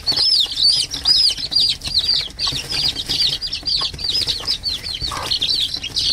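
A brood of chicks peeping rapidly and without pause, a rapid run of short high rising-and-falling peeps, while they scramble over earthworms, with brief fluttering and scuffling among them.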